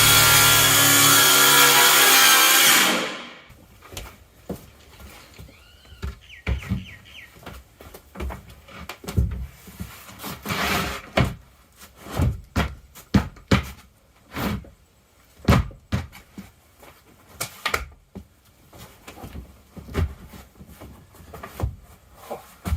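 A power saw cutting a wooden wall board runs until about three seconds in and then winds down. After that come irregular knocks and taps as panels are handled and fitted.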